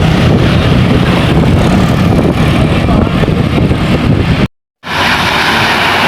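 A bus passing close by: engine and road noise, with no horn sounding. The sound cuts out abruptly for a split second about four and a half seconds in, then passing traffic noise resumes.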